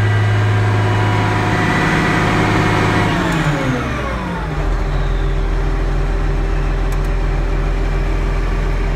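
International Harvester tractor's diesel engine running steadily in the cab at low throttle. About three seconds in, its speed drops smoothly over a second or two and settles to a steady low idle of about 840 rpm.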